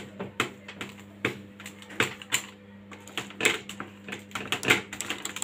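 The bottom of a drinking glass pressing down on freshly baked cookies on a lined baking tray, making irregular light clicks and taps, a few of them a little louder. A faint steady hum runs underneath.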